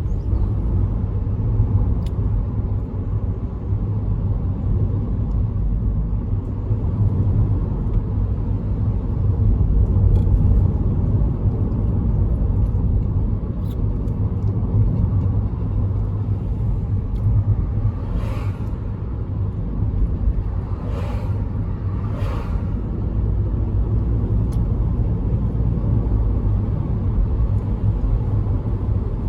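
Car driving along the road, with a steady low rumble of road and engine noise. Three short hissing sounds break in near the end.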